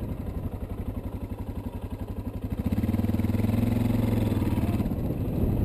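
Single-cylinder 650 cc dual-sport motorcycle engine pulling at low revs with a rapid even thump. About two and a half seconds in the throttle opens and the engine runs louder and steadier, then eases off slightly near the end.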